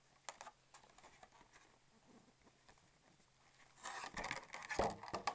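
A phone being lifted out of its clear plastic packaging tray: a few faint clicks at first, then a burst of plastic crinkling and clicking about four seconds in.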